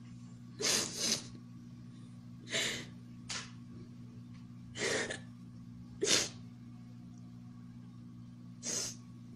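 A woman sniffing and drawing short, sharp breaths through a face mask, about seven times spaced a second or two apart, over a steady low electrical hum.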